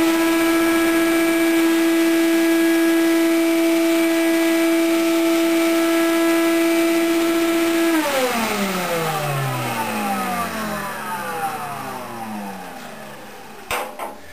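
Shop vac motor running at full speed with a steady high whine, its exhaust blowing into an air-cushion base under a bandsaw. About eight seconds in it is switched off and winds down, the whine falling in pitch and fading over several seconds.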